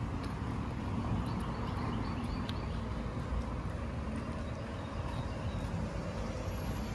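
Steady low outdoor rumble, with faint footsteps on a concrete sidewalk.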